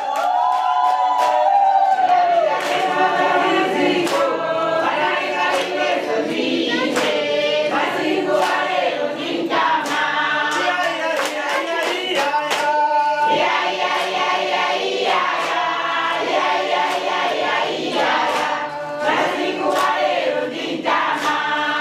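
A congregation singing together in chorus with hand clapping.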